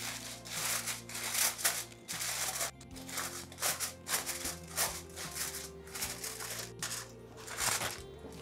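Aluminium foil crinkling in many short, sharp crackles as it is pressed and crimped around the rim of a metal pan, over background music.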